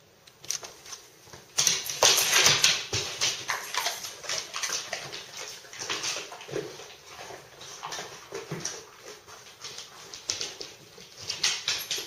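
A dog whimpering and whining, with many quick clicks and scratching noises mixed in, starting about a second and a half in.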